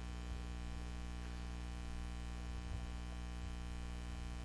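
Steady electrical mains hum with a faint hiss, unchanging, with no speech.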